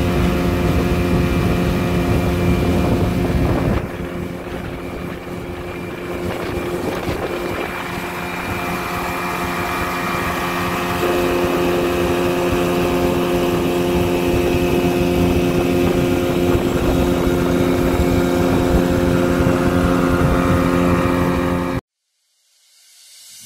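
Outboard motor running as a small aluminium boat travels across the water, with some wind on the microphone. Its level drops about four seconds in, builds back up over the following several seconds, and cuts off suddenly near the end.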